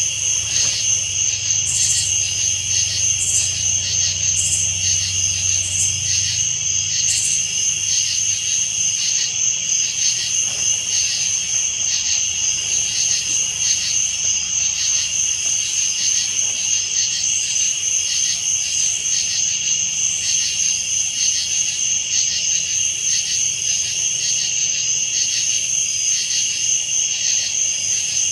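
Chorus of night insects such as crickets: a steady high trill with a rapid, even pulsing of chirps over it. A faint low rumble fades out about six seconds in.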